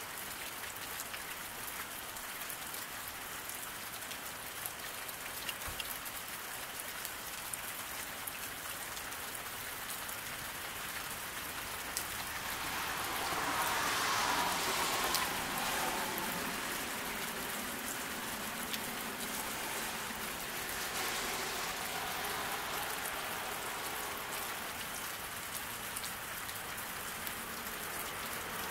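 Steady rain falling on a road, with scattered louder drops. About halfway through, a car passes on the wet road, its tyre hiss swelling and then fading away.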